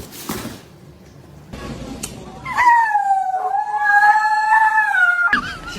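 A dog howling: one long, slightly wavering call lasting nearly three seconds, starting about halfway in and cutting off abruptly.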